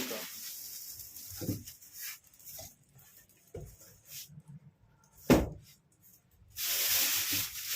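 Unboxing a PC case: scattered knocks and scrapes of the cardboard box being handled, one sharp thump about five seconds in, then a steady rustling hiss of packaging near the end.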